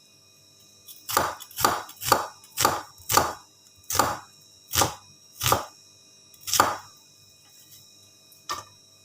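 Knife chopping on a cutting board: about nine sharp strokes at an uneven pace of roughly two a second, then a pause and one more stroke near the end.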